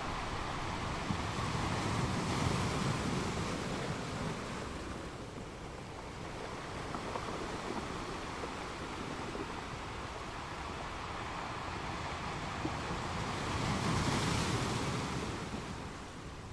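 Ocean waves washing onto the shore, one swell building and breaking a couple of seconds in and a louder one near the end before it eases off.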